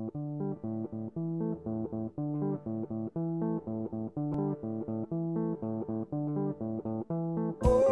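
Background music: a plucked guitar and bass riff of short, rhythmically repeated notes. Near the end a louder full band comes in with drum and cymbal hits and a held note.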